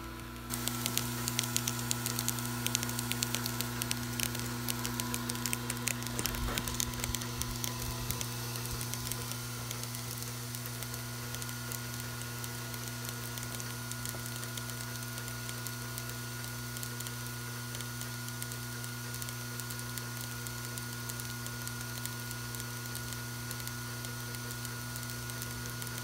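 Vibratory bowl feeder running: a steady electric hum with many small parts rattling and clicking as they vibrate along the bowl's spiral track. The clicking is dense for the first several seconds, then settles into an even buzz.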